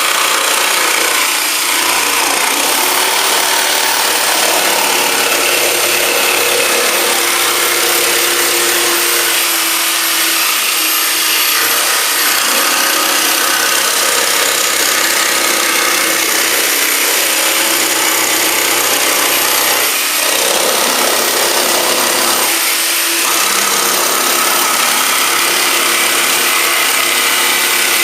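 Corded jigsaw cutting through plywood, running steadily with the blade rasping through the wood as it follows a circle on a pivot jig.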